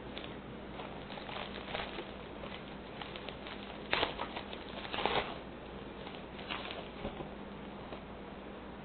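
Trading cards being handled: cards and card stock sliding and tapping in the hands, with two louder rustling bursts about four and five seconds in, over a faint steady hum.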